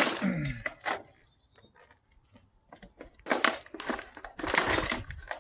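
Stiff plastic blister packaging crackling and crinkling in short bursts as it is forced open. The loudest bursts come about three and four and a half seconds in.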